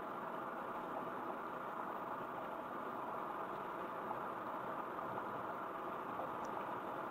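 Steady car engine and road noise from a car being driven, an even rumble with no sudden events.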